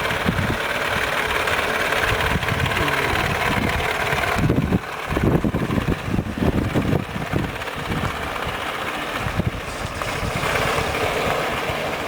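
1926 Morris Cowley's four-cylinder side-valve engine running on the bare chassis. It idles steadily, with an uneven stretch of heavy low pulsing about halfway through.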